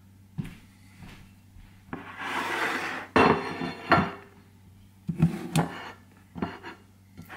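Kitchen handling: a scraping rub for about a second, then a plate set down on the counter with two sharp knocks, followed by a few lighter taps and clinks.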